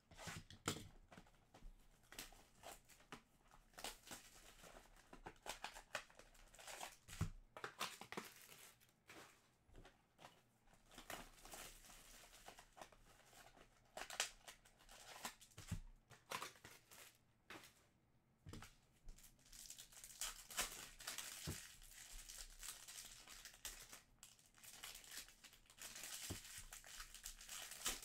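Trading card packs being torn open and their wrappers crinkled and crumpled: a quiet, irregular run of scratchy rustles and small clicks, denser toward the end.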